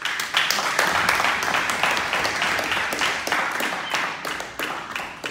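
Small group of spectators applauding in a gym hall, a dense patter of clapping that thins out into a few separate claps near the end.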